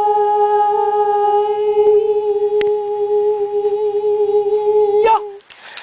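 A person's voice holding one long, steady, high sung note, then breaking off with a quick upward slide about five seconds in.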